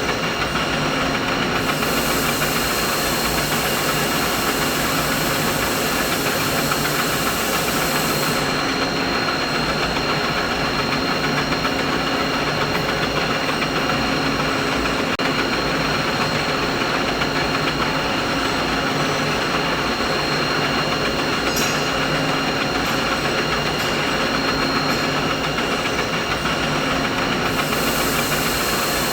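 Steady machine noise: an even mechanical drone with a few faint, steady whining tones running through it. A thin high hiss comes in about two seconds in, drops out around eight seconds, and returns near the end.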